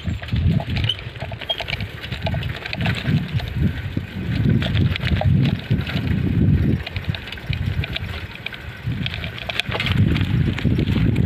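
Wind buffeting a phone's microphone in uneven gusts, a low rumble that swells and drops every second or so, with a few faint bird chirps above it.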